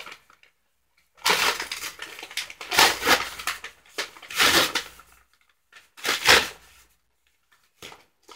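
Brown kraft paper bag crinkling and crumpling as hands pull it open and down around a potted plant. It comes in uneven rustling bursts from about a second in to about five seconds, then one more loud crinkle near six seconds and a few faint ones near the end.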